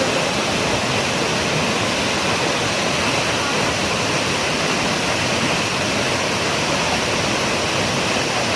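Waterfall pouring: a steady rush of falling water.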